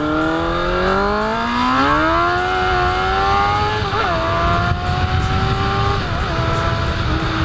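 Motorcycle engine pulling hard under acceleration, its pitch rising steadily, then shifting up twice: once about four seconds in and again about two seconds later, each shift dropping the pitch a step before it climbs on.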